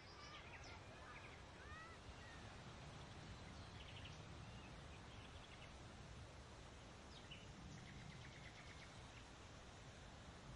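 Faint outdoor ambience: a steady low rumble of wind, with a few soft bird calls and short trills now and then.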